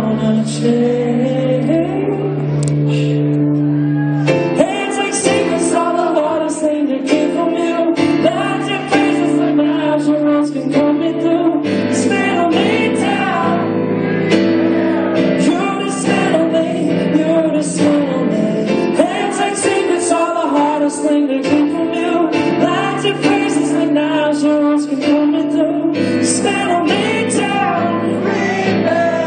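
Live acoustic band music: strummed guitar chords under a sung melody line.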